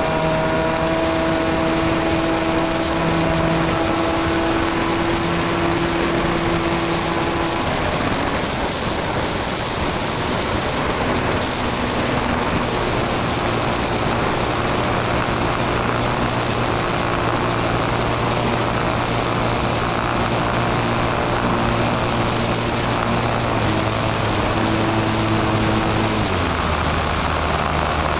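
Model airplane's motor and propeller running in flight, heard from a camera on the plane under heavy wind rush. The motor's pitch shifts up and down in steps several times.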